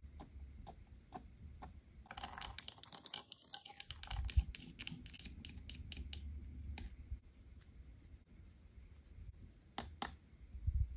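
Tiny wire whisk clicking and scraping against a small toy mixing bowl as miniature batter is whisked: a quick run of taps about two seconds in, then scattered clicks with a couple of sharp ones near the end.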